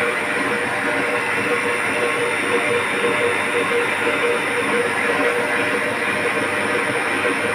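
Turbo Grande electric mixer motor running at a steady speed, giving an even, unchanging whirring drone.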